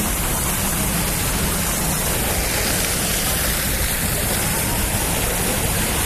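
Steady rushing of water from an outdoor plaza fountain, an even noise that does not change.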